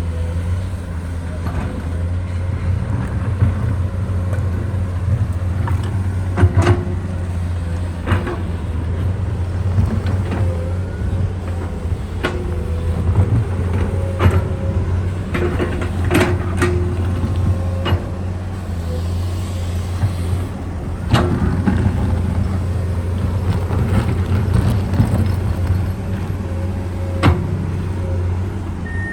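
Komatsu PC210 hydraulic excavator's diesel engine running steadily as it digs a ditch, with sharp metallic clanks and knocks every few seconds.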